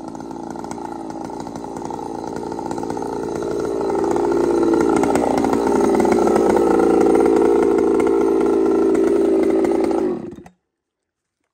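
Two-stroke petrol chainsaw running steadily, growing louder as it is carried closer, then cutting off suddenly near the end.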